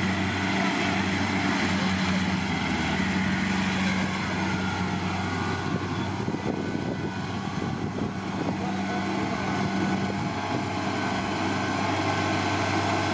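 Kubota DC70 Plus combine harvester running steadily at working throttle: a diesel engine drone with the dense mechanical rattle of the machine's working gear.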